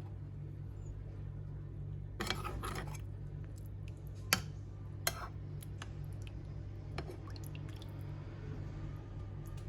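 Kitchen sounds of chicken adobo being cooked: a short wet splash or squish of liquid about two seconds in, then a few sharp clicks, over a steady low hum.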